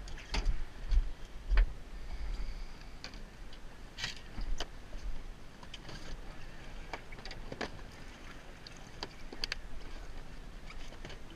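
Boat ambience on open water: a steady low rumble with scattered clicks and knocks.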